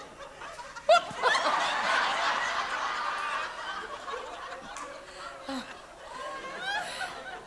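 Theatre audience laughing: the laughter breaks out suddenly about a second in, is loudest for the next couple of seconds, then dies down, with a few stray laughs near the end.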